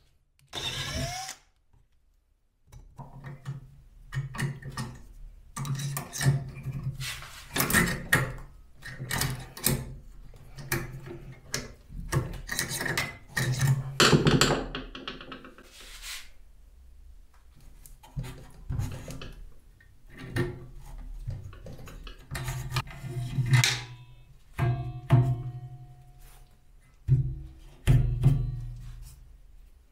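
Hand work on a workbench: a run of irregular knocks, taps and scrapes of wooden blocks and metal parts being set down and handled, with a few louder thunks.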